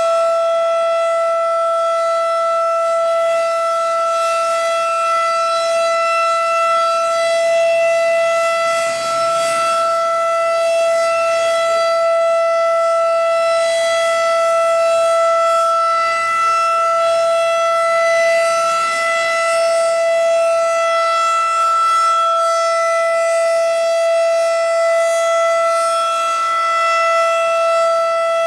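Federal Signal 2001-DC electromechanical tornado siren sounding the alert signal: one loud, steady tone held without any rise or fall.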